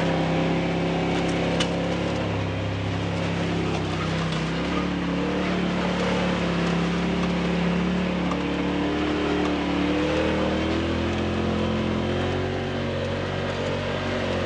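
Off-road vehicle's engine running steadily as it drives along a bumpy dirt trail, its note rising and falling gently with the throttle.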